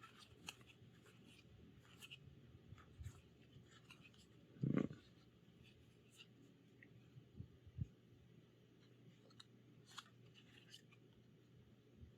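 Near silence with faint scattered ticks and light rustling of trading cards being handled, and one short soft thump about five seconds in.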